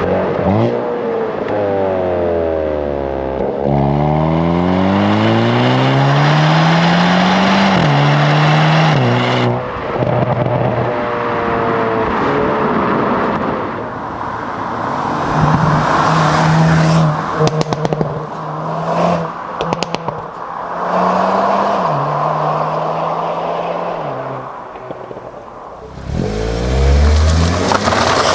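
Hyundai Kona N's 2.0-litre turbocharged four-cylinder accelerating hard through the gears of its 8-speed dual-clutch gearbox, the revs climbing and dropping back at each upshift. Midway it runs at steadier revs with a burst of sharp exhaust crackles, then shifts a few more times.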